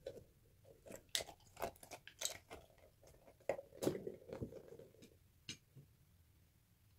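Hands squeezing a gel-filled plastic gummy-bear squishy toy and moving through water beads in a glass dish: a run of sharp sticky clicks and soft squishing that stops about five and a half seconds in.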